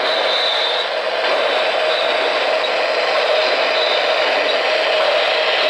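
O-gauge model trains running on the layout's track, a steady whirring rumble of wheels and motors with a faint steady hum.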